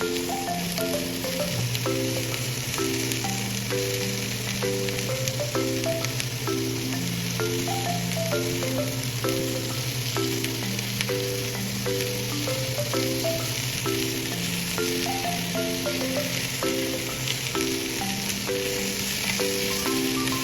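Green peppers and tofu sizzling in sesame oil in a frying pan, a steady hiss, under a light background tune of short mallet-like notes.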